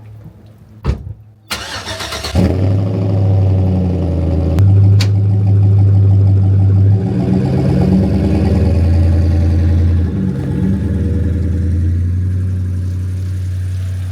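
A thump, then the pickup truck's engine cranks and starts about two seconds in and runs on steadily, its pitch rising and dipping a few times.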